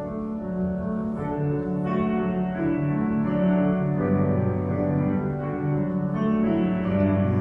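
Keyboard instrument playing a hymn in slow, held chords.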